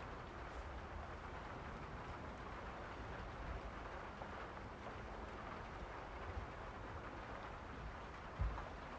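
Steady rain falling, an even continuous hiss, with one short low thump near the end.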